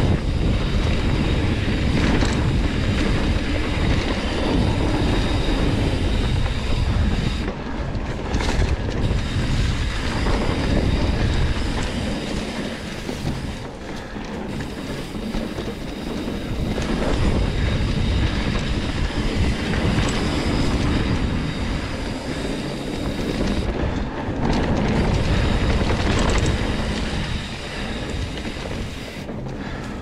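Trek Roscoe 9 hardtail mountain bike ridden down dirt and gravel singletrack: knobby tyres rolling over the rough trail, the bike rattling over bumps, with wind rumbling on the microphone. It is loud throughout, easing for a stretch in the middle and again near the end.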